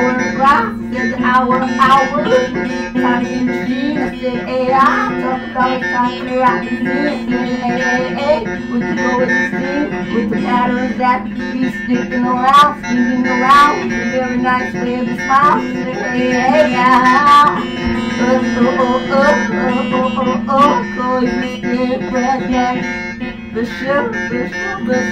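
Electric guitar played through an amp, a lead line of short notes bent up and down in pitch over steady sustained low tones.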